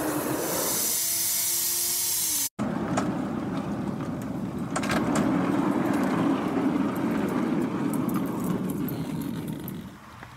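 Small electric motor of a homemade model train engine running as the engine rolls along a metal-rod track, with a few sharp clicks. The sound swells as the train passes and fades near the end. It opens with a loud hiss that cuts off sharply a couple of seconds in.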